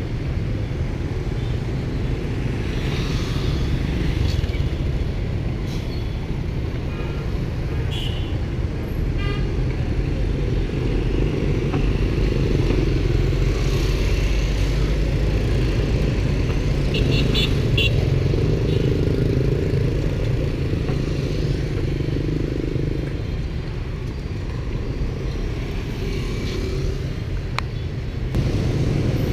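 Street traffic dominated by motorbikes and scooters, their small engines running steadily together with passing cars. Short horn beeps come and go, with a quick string of them a little past halfway.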